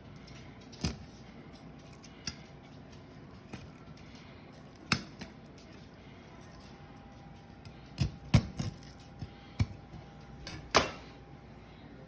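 Scattered sharp clicks and knocks of a knife or kitchen shears and a raw chicken being worked on a cutting board while the wishbone is cut out. The strikes come irregularly, about ten in all, thickest and loudest in the last few seconds.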